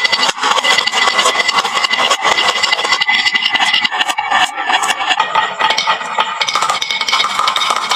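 Many marbles rolling and clacking down a wooden marble-run slope, a dense, continuous clatter of small clicks.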